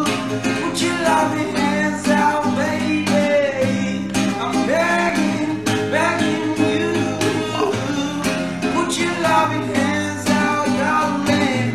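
A young man singing a melodic song to his own strummed acoustic guitar.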